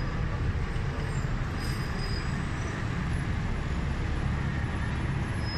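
Steady low rumble of a bus's engine and road noise, heard from inside the moving bus.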